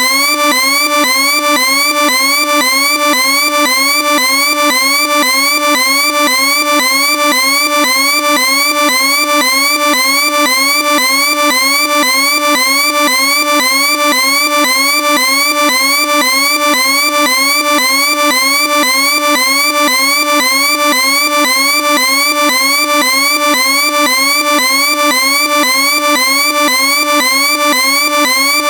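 Electronic warning alarm siren: a harsh, buzzy tone that sweeps up in pitch and snaps back, over and over in quick, even repeats without a break.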